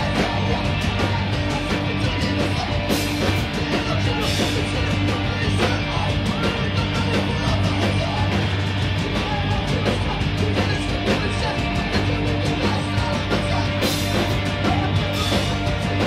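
Hardcore punk band playing live and loud: distorted electric guitar over fast, dense drumming, with cymbal crashes standing out a few times.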